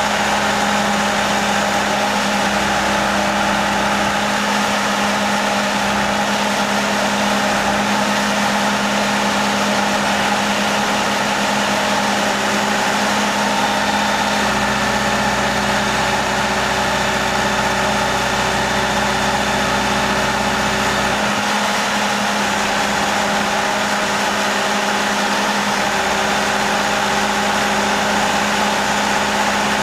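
Engine of a boat hoist running steadily while it takes a boat out of the water on lifting straps. A deeper low hum joins it for several seconds in the middle.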